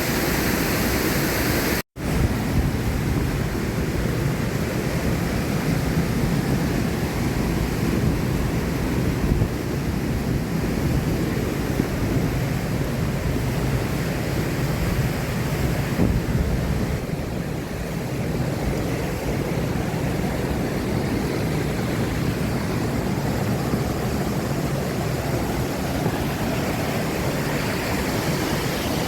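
Steady rushing of ocean surf and a waterfall below the cliffs, with some wind on the microphone. The sound cuts out for an instant about two seconds in.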